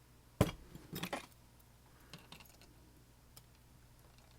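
Small metal lock parts of a disassembled Kwikset SmartKey lock clicking as they are handled: one sharp click about half a second in, a short cluster of clicks around a second in, then a few faint ticks.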